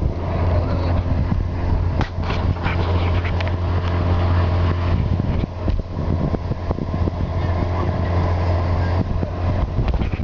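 Motorboat engine running steadily under way, a low even hum, with wind and water noise over it and a few brief knocks about two seconds in.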